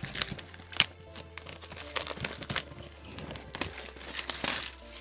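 Plastic shrink-wrap crinkling and crackling in irregular bursts as it is cut and torn off a cardboard display box.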